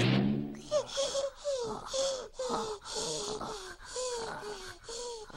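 Two exhausted cartoon animals panting hard: wheezy voiced breaths about two a second, each falling slightly in pitch with a hissy rush of air. A short low tone sounds in the first second.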